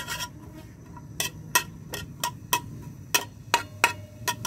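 Metal spatula clinking and scraping against a steel frying pan while stirring chopped garlic being sautéed in oil until it browns: about a dozen irregular strikes, two to three a second.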